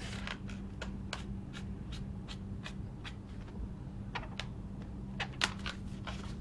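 A twisted latex balloon sculpture being handled and drawn on with a marker: irregular soft ticks and rubbing of latex, with a steady low hum underneath.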